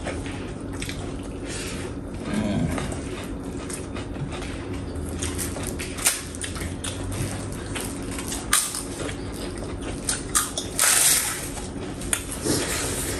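Eating sounds at a meal: scattered light clicks of dishes and utensils, with a short hissing burst about eleven seconds in, over a steady low hum.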